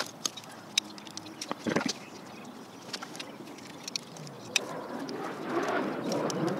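Small metal clicks and scrapes as a screwdriver pries at the cotter pin holding the parking-brake lever on a drum brake shoe. A louder rustling, scraping stretch comes in the last couple of seconds.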